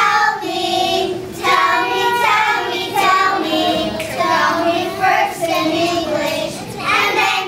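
A group of young children singing a song together, in phrases that break every second or two.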